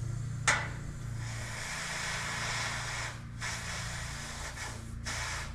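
Compressed air hissing into a Ford 2N tractor tire through an air chuck, in spurts with short pauses about three and five seconds in, after a sharp click about half a second in. The tire is being brought up to about 14 psi.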